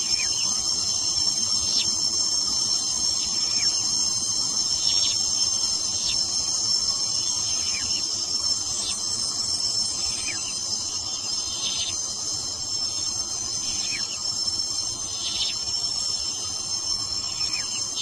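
Dense chorus of crickets or katydids: several steady high-pitched trills held without a break. Under them, short falling chirps repeat roughly once a second.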